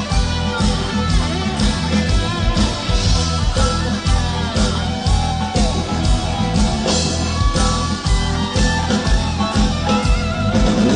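Live rock band playing an instrumental break: an electric guitar lead with bending notes over a steady drum beat and bass.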